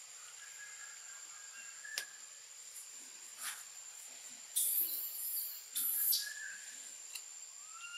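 Baby long-tailed macaque crying to its mother, begging to nurse: two loud, harsh, high screams about four and a half and six seconds in, after faint whimpering calls in the first two seconds. A steady high insect drone runs underneath.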